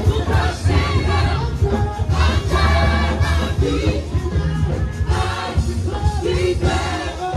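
Loud live gospel praise music: a band with heavy, continuous bass, and many voices singing together like a choir.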